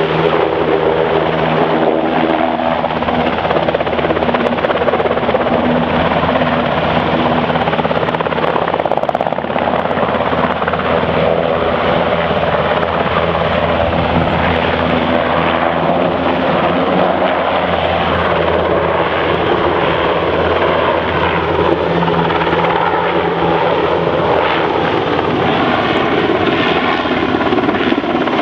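NH90 twin-turboshaft military helicopter in flight, its rotor and turbine noise loud and continuous. A steady engine tone is clear for the first couple of seconds, after which a broad, rushing rotor noise takes over.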